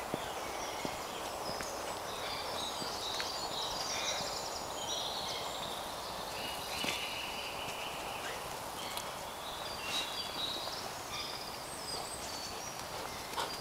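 Woodland birds singing, several songs overlapping and coming and going, over a steady outdoor hiss. A few soft footsteps sound on the dirt path.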